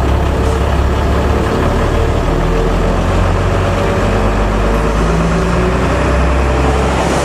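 Bus engine running steadily at low revs, a deep even drone heard from inside the cabin while the bus idles and creeps in a traffic jam.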